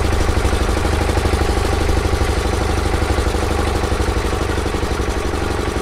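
Small boat engine idling steadily, with a fast even pulse.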